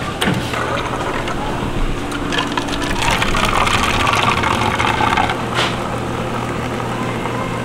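Bean-to-cup coffee machine brewing: a steady machine hum, with a hissing splash of coffee streaming into a paper cup that is loudest in the middle.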